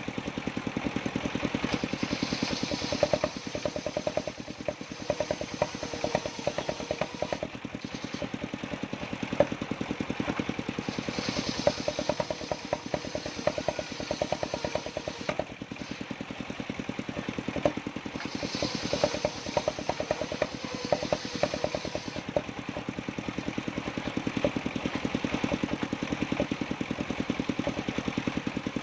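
The engine of a mobile circular sawmill runs steadily with rapid, even firing pulses, as the rig saws jowar wood. A brighter, higher sound swells and fades every several seconds over the engine.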